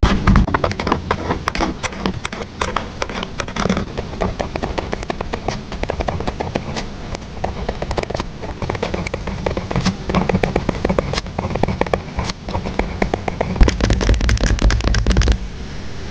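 Close-miked crackling and crinkling of journal-making materials (paper, stickers and plastic) being handled, a dense run of small irregular clicks. Near the end a low rumbling rub joins in for a second or two.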